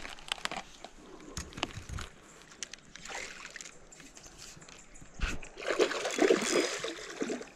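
River water sloshing and splashing around a log in short bursts, loudest about six seconds in, with scattered light clicks and a dull knock earlier.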